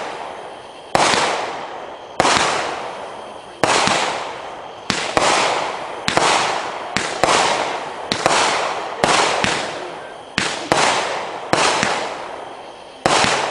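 Assassin series 'Crane' consumer firework cake firing a long volley of aerial shots. Each shot bursts with a sharp bang that fades away over about a second, coming roughly once a second and more closely bunched in the middle.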